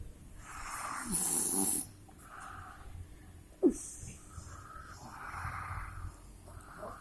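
A person snoring in their sleep: a series of snoring breaths, the loudest about a second in. About three and a half seconds in there is a short, sharp sound that falls in pitch.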